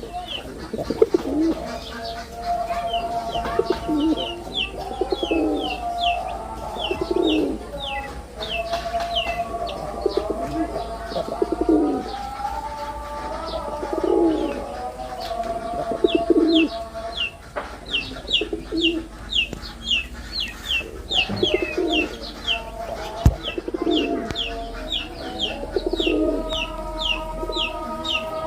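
Several male jalali pigeons (rock pigeons) cooing, their coos overlapping and repeating one after another. A small bird chirps over them in quick runs of short, high, falling notes, about three a second.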